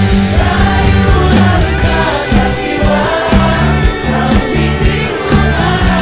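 Background music: a song with sung vocals over a steady beat and bass line.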